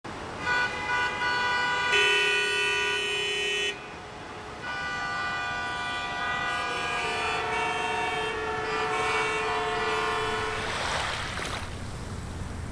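Sustained horn-like tones held in overlapping chords, each lasting a few seconds, then a swell of hissing noise like wind or surf near the end.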